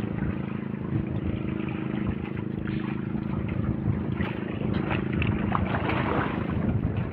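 Boat engine running at a steady speed.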